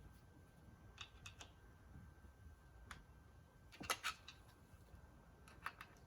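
A few faint, sharp clicks and taps over low room noise. The loudest is a quick cluster of clicks about four seconds in.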